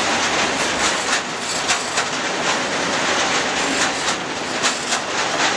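Freight wagons of a timber train rolling past at speed: a steady rush of wheels on rail, broken by repeated sharp clicks, often in quick pairs, as the wheels cross rail joints.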